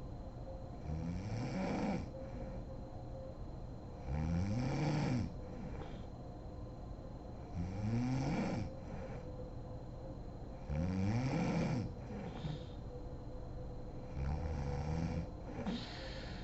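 A sleeping woman snoring: five loud snores about every three and a half seconds, each lasting about a second.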